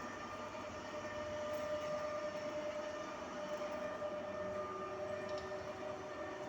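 A machine running steadily with a constant whine over a mechanical hum; a second, lower tone joins about two-thirds of the way through.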